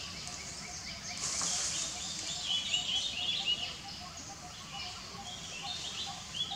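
Birds chirping in the trees: many short high chirps over a steady outdoor hiss, with a faint lower note repeating about three times a second.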